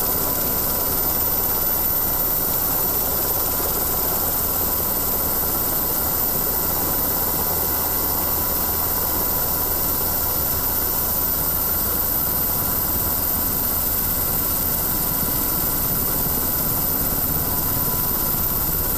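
Steady engine drone of the aircraft carrying the camera, heard from on board: an even noise with a constant hum that never rises or falls.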